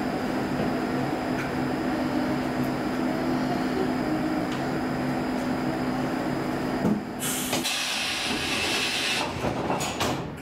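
Inside a standing Saltsjöbanan Class C10 electric train: its equipment hums steadily. About seven seconds in the hum stops with a thump, and a loud hiss of compressed air follows for about two seconds, then a few clicks.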